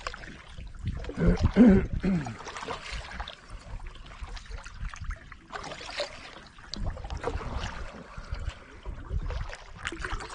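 Kayak paddling: the paddle dipping and water trickling and splashing in irregular strokes. A short voice-like sound comes about a second in.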